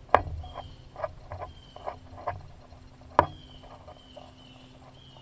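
Knocks, clicks and scuffs of a hunter climbing down a tree from a hunting stand. Two sharp knocks stand out, one just after the start and one about three seconds in, with quieter scrapes and taps between them.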